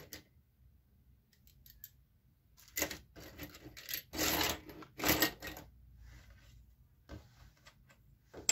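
Strips of collated steel nails and staples scraping and clinking as a hand rummages through a loose pile of them on a table, in a few short bursts between about three and five and a half seconds in, with a sharp click near the end.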